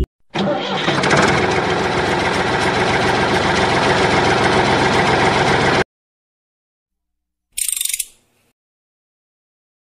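Small geared electric toy motor running with a fast, dense rattle for about five seconds, then cutting off suddenly. A brief rustle follows about two seconds later.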